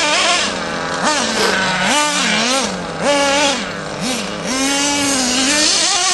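LRP radio-controlled off-road car's motor revving up and down in repeated short bursts of throttle, its pitch rising and falling six or seven times.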